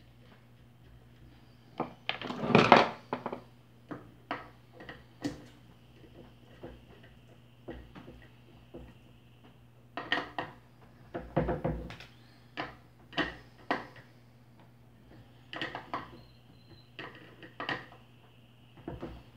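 Irregular clicks, knocks and light scraping of a plastic fan blade being seated on the motor shaft of an old Arno floor fan and its hub tightened with a metal rod, the busiest rattle about two seconds in.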